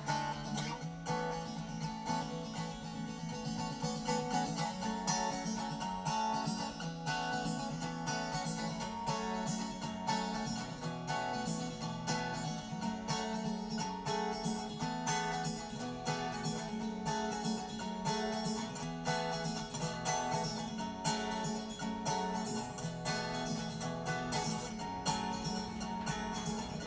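Background music: an acoustic guitar arrangement, plucked and strummed at an even pace.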